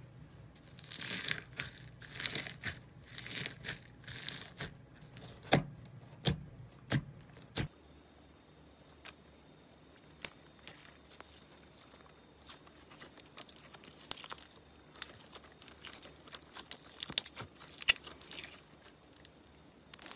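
Slime being pressed by hand: a tub of foam-bead slime gives runs of crackling and a few sharp pops. After a cut near eight seconds, purple jelly-cube slime is squeezed, with scattered clicks and crackles.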